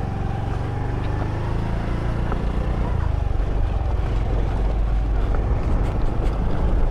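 Honda scooter running as it pulls away and rides along a lane, with a steady low rumble that grows gradually louder as it gathers speed.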